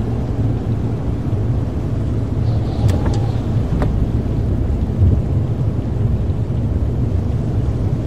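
A car driving along: a steady low rumble of engine and tyres on the road, with a few faint sharp clicks around three to four seconds in.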